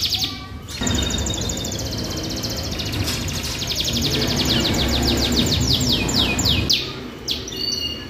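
Loper canary in full song: a long, rapid trill of evenly repeated high notes that slows near the end into wider falling sweeps, followed by a few held notes. There is a short break about half a second in.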